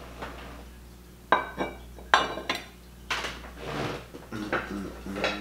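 Ceramic and glass pieces clinking against each other as they are handled and set down: two sharp, ringing clinks about a second and two seconds in, followed by lighter knocks and handling noise.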